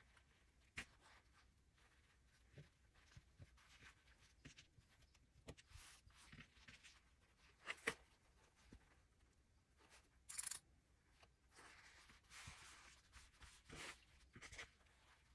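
Quiet handling of cotton fabric layers on a cutting mat: faint rustling and rubbing, with a few sharp clicks from plastic sewing clips being opened and snapped onto the fabric edges. The loudest click comes about eight seconds in.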